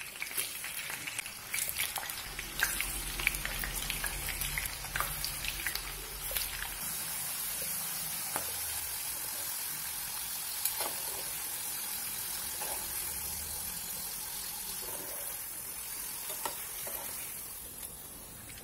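Sliced potatoes sizzling as they shallow-fry in hot oil in a nonstick pan, a steady hiss with scattered light clicks and taps of the slices being handled during the first several seconds. The sizzle eases off near the end.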